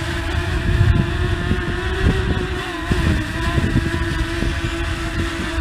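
Potensic Atom mini drone's propellers buzzing with a steady whine as it hovers close in for a hand catch, over gusty wind rumbling on the microphone.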